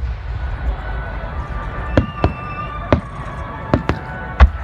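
Fireworks shells bursting overhead: a quiet first two seconds, then about six sharp bangs, two of them close together, the loudest near the end.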